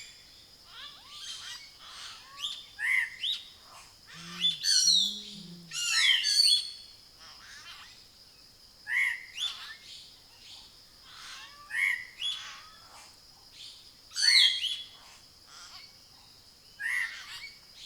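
Several wild birds calling in repeated short chirps and whistled notes, every second or two, over a steady high whine. There are two low hoots about four and a half seconds in.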